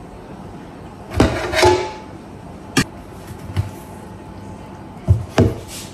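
Metal cooking pots and a plate being handled and set down on a kitchen counter: a few separate clanks and knocks, the loudest pair about a second in with a brief metallic ring, a sharp clink near the middle, and two thumps near the end.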